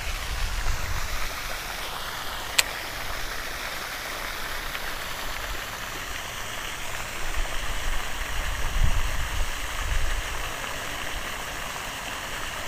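Pond spray fountain splashing steadily, with a low, uneven rumble underneath and a single sharp click about two and a half seconds in.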